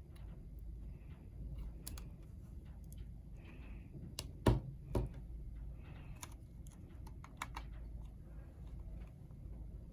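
Irregular small plastic and metal clicks and taps from a Chromebook being taken apart by hand, with two louder knocks about halfway through.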